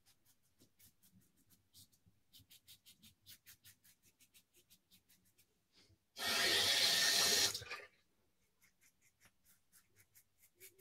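Mühle Rocca safety razor scraping through two-day stubble in quick, short strokes, several a second. About six seconds in a tap runs loudly for about a second and a half and stops. Near the end there are faint, quick strokes of a synthetic shaving brush working lather on the face.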